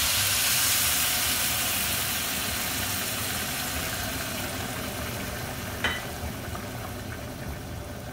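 Broth poured into a hot pan of frying rice and vegetables, hissing and sizzling loudly as it hits the pan. The hiss slowly dies down as the pan fills. There is one short knock about six seconds in.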